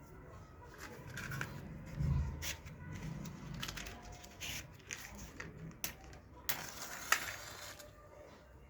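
A lighter being struck again and again to set a wire's insulation alight: a series of sharp clicks and short scratchy rasps, with a longer hissing rush about six and a half seconds in.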